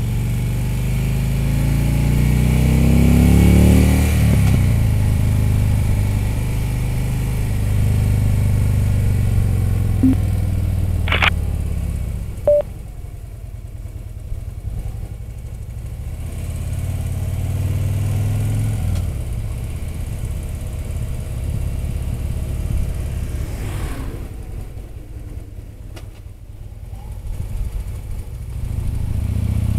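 Touring motorcycle's engine heard from the rider's seat, rising in pitch over the first few seconds, then easing off and quietening about twelve seconds in and again a few seconds before the end before pulling up once more. Two brief clicks come near the middle.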